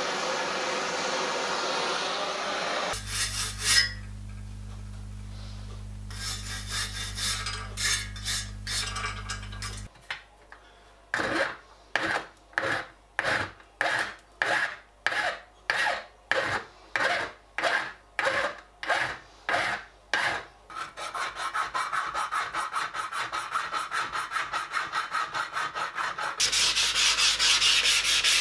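A gas blowtorch flame hissing steadily for about three seconds, then hand-working of a silver-soldered joint on a brass sheet dome: even file strokes, about one and a half a second, then quicker rubbing with an abrasive block on the brass, loudest near the end.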